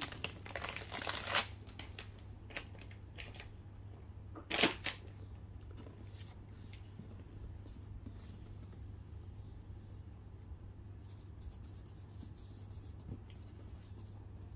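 Clear cellophane wrap crinkling as it is peeled off a cardboard perfume box, a few crackly bursts at the start and one more about four and a half seconds in. After that, only faint rubbing and light taps of fingers on the box over a low steady hum.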